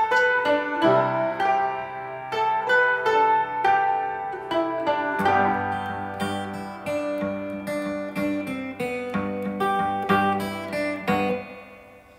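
Instrumental background music of plucked string notes, guitar-like, fading out near the end.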